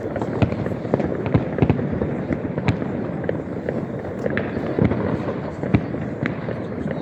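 New Year's Eve fireworks and firecrackers going off all around: a dense, continuous crackle and rumble with many sharp bangs at irregular intervals, several a second.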